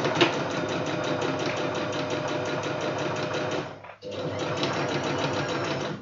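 Singer Talent domestic sewing machine stitching at a steady speed, with a sharp click just after the start. It stops for a moment about four seconds in, then runs again until it stops at the end.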